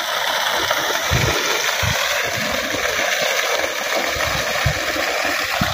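Water from a new tubewell gushing out at full pressure in a steady rush, with irregular low thumps underneath.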